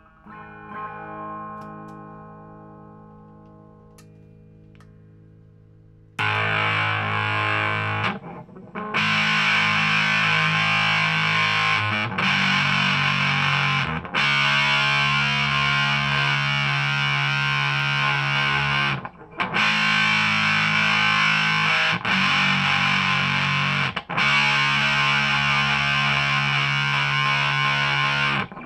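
Electric guitar (2012 Epiphone Les Paul Standard) through a Marshall Origin 20 valve head and 2x12 cabinet. A picked chord rings out and fades, then about six seconds in come loud distorted chords, each held for a couple of seconds with short breaks between changes.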